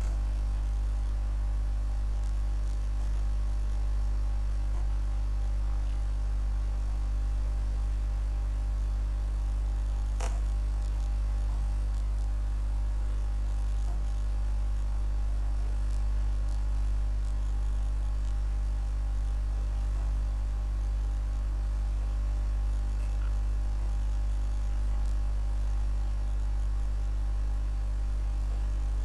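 Steady low electrical mains hum picked up on the recording, a constant buzz at about 50 Hz with a stack of higher overtones that does not change. A single click sounds about ten seconds in.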